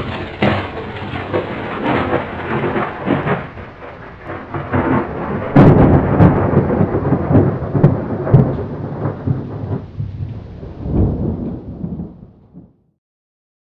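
Loud rumbling, crackling sound effect laid under an animated title logo, with a sharp loud crack about five and a half seconds in. It then fades and cuts off abruptly near the end.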